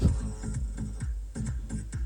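Background electronic music with a steady beat. A sharp click right at the start.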